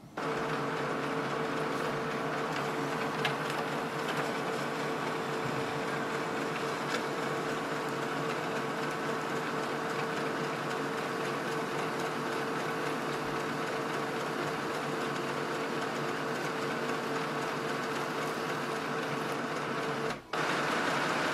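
HP DeskJet 3772 all-in-one printer's sheet-feed scanner running steadily as it draws a page through and scans it, a mechanical whir with a steady hum in it. It stops briefly near the end, then runs for about another second.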